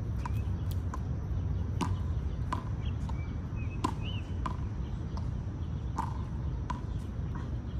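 Outdoor ambience: a steady low rumble with scattered sharp clicks at irregular intervals and a few faint bird chirps near the middle.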